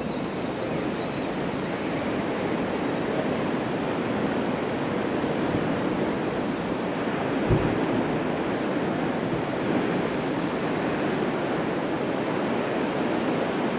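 Sea surf washing against a rocky shore as a steady rush, with some wind on the microphone; a brief low thump about seven and a half seconds in.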